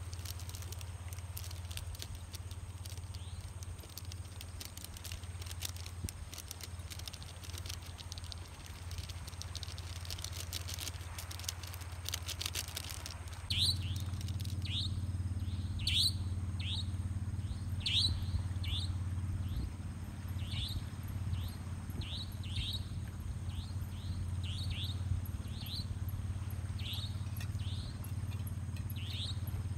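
Night outdoor ambience: a steady low hum under a thin high insect tone, with fine crackling in the first half. From about halfway on, an animal gives short chirps that sweep downward, roughly one a second.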